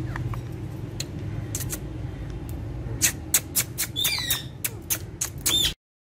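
Indian ringneck parrots calling: a quick run of sharp squawks, some with sweeping pitch, starting about halfway in. The audio cuts off abruptly just before the end.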